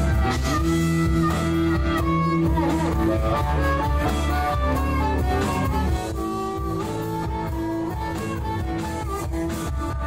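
Background instrumental music with long held notes; it steps down a little in level about six seconds in.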